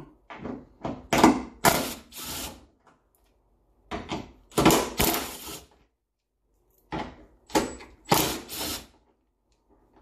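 A ratchet on a 10 mm socket loosening bolts, in three spells of short ratcheting strokes with pauses between.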